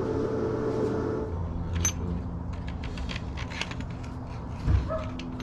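Light metallic clinks and scraping from a table saw part, cleaned of rust, being slid and worked by hand to test whether it moves freely, with one louder knock near the end. A steady hum stops about a second in.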